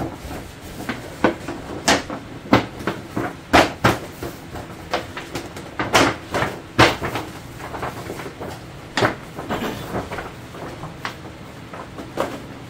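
Stiff paper shopping bag crinkling and rustling as it is handled, with taps and slides of cardboard gift boxes, in a quick irregular run of sharp crackles that thins out in the last few seconds.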